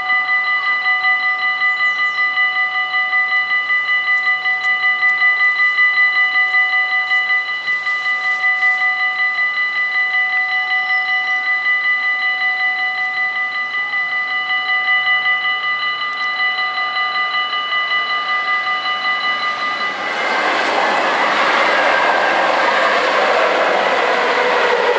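Level-crossing warning bells ringing in a rapid, steady peal while the half-barriers are down. About 20 seconds in the bells stop and the rushing, rumbling noise of an NS SGMm Sprinter electric train passing over the crossing takes over.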